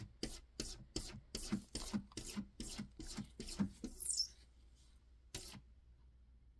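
A cat scratching at a door to be let in: quick, even scratching strokes, about three a second, that stop about four seconds in, with one more stroke a little later.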